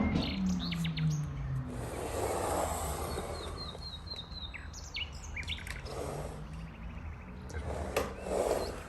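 Small birds chirping and calling in short high notes, with a quick run of repeated notes in the middle.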